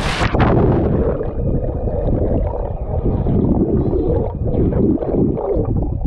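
A splash as the camera plunges into a swimming pool, then the muffled underwater rumble and gurgling of bubbles and moving water, heard with the microphone submerged.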